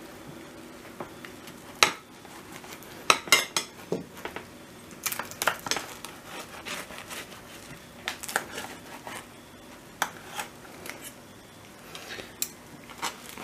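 Knife cutting through the crisp, oven-browned yufka layers of a minced-meat börek, clicking and scraping against the metal baking tray in irregular sharp clicks and crackles.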